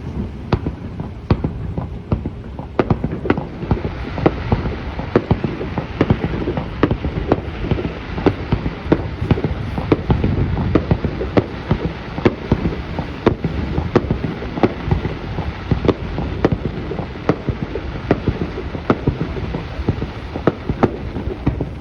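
Aerial fireworks shells bursting in a rapid, continuous barrage, several sharp bangs a second over a steady low rumble.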